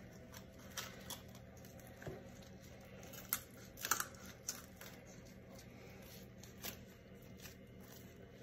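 Kitchen shears cutting through a raw chicken alongside the backbone, giving a scattering of short, irregular snips and crunches. The loudest come about three to four seconds in.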